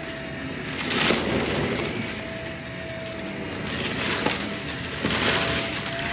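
Shark vacuum running over thick shag carpet, its motor holding a steady whine while it sucks up a pile of small hard flakes with a crackling, rattling crunch. The crunch swells about a second in and again near the end as the head pushes into the pile.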